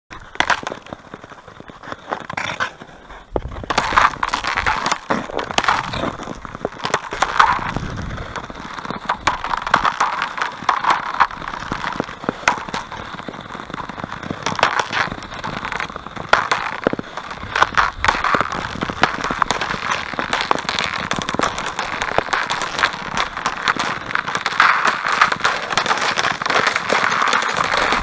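Thin, clear lake ice cracking: a dense, irregular run of sharp snaps and crackles, quieter at first and much louder from about three and a half seconds in.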